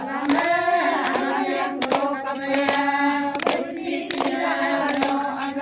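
A group of women singing together in unison, holding one long steady note through most of the song line, with scattered hand claps.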